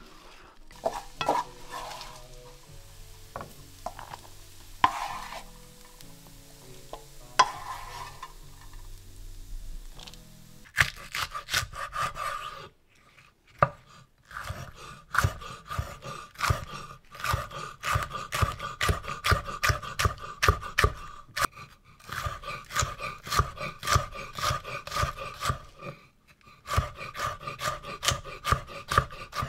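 Soft background music, then from about a third of the way in a chef's knife chopping red peppers on a wooden cutting board: quick, even strokes about three a second, in runs broken by brief pauses.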